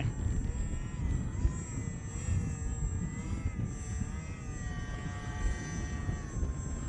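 Electric motor and propeller of a HobbyZone Aeroscout RC plane whining in flight, its pitch wavering up and down as the plane hangs nearly still into a strong headwind. Wind buffets the microphone with a low rumble.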